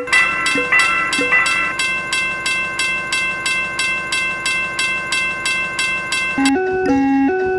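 Level-crossing warning bell ringing in rapid, even strikes over a held ringing tone. About six and a half seconds in it gives way to a bouncy electronic melody.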